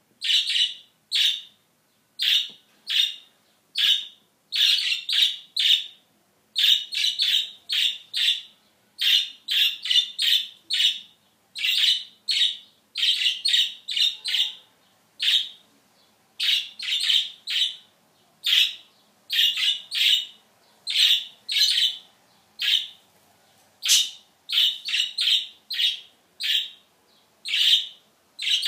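Budgerigar chirping: a steady run of short, sharp chirps, two or three a second, often bunched in quick groups.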